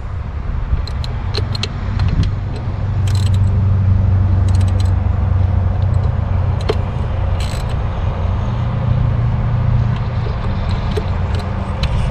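Scattered metal clicks and clinks of a wrench tightening the thermostat-cover bolts on an outboard motor, over a steady low rumble.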